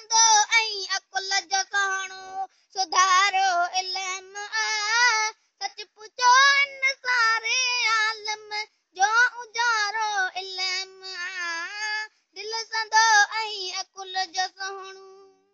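A child's high voice reciting a Sindhi poem in a sing-song chant, unaccompanied, in phrases of a second or three broken by short pauses, the pitch wavering and gliding.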